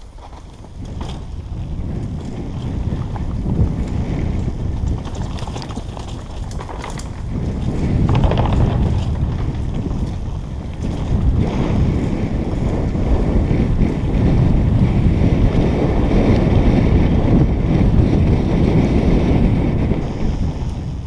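Wind buffeting a helmet-mounted camera's microphone at speed, over the rumble and rattle of a downhill mountain bike's tyres and frame on a dirt trail, with a few sharp knocks in the first seconds. It grows louder about eight seconds in and stays loud until near the end.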